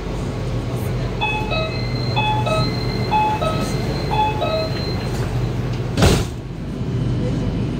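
Metro train's door-closing warning chime: a two-note high-then-low beep sounds four times over about three seconds. Then the sliding doors shut with a sharp thud about six seconds in, over the car's steady hum.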